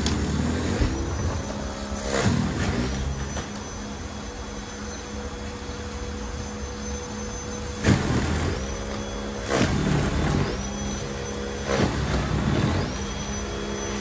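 POWERSMART 80V battery two-stage snowblower running as it clears slushy snow, with a steady electric motor whine broken by short loud surges. In the second half the whine drops out and spins back up a few times.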